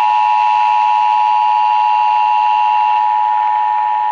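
Emergency Alert System attention signal: a loud, steady two-tone blare that cuts off abruptly at the very end, announcing a severe thunderstorm warning.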